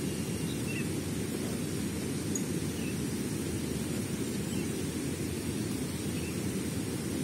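Steady low rushing of a river running high and noisy with rising water.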